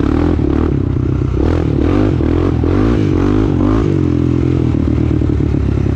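Honda 400EX ATV's single-cylinder four-stroke engine running hard on a trail, its pitch rising and falling several times as the throttle is worked on and off, with knocks and rattles from the machine over rough ground.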